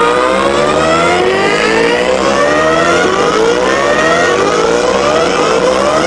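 Loud techno music from a parade sound system, a synth line made of short rising pitch sweeps repeating over one another without a break.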